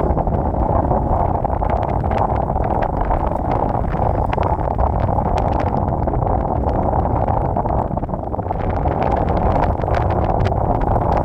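Floodwater rushing steadily over the ground, with wind buffeting the microphone and a low rumble underneath.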